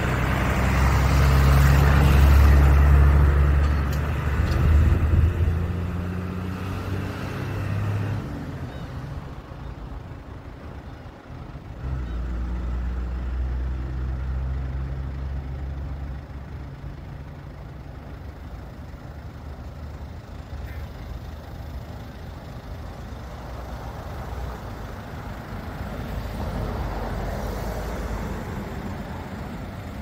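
A heavy vehicle engine running with a low, steady hum. It is loudest in the first few seconds, fades, swells again about twelve seconds in and dies away by the sixteenth second, leaving a faint steady background noise.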